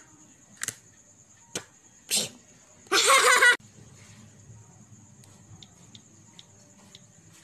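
A person's voice making a few short vocal noises, the loudest a half-second pitched burst about three seconds in, over a faint high steady whine.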